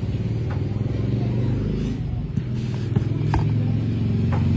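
Steady low hum of an electric fan running, with a few short clicks and smacks of eating mixed in.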